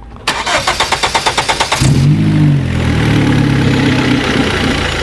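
Car engine cranked over by the starter, catching about two seconds in with a brief rev that falls back to a steady idle.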